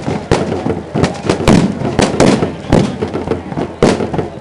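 Fireworks and firecrackers going off in quick, irregular succession: a dozen or so sharp bangs and cracks in about four seconds, each with a short ringing tail.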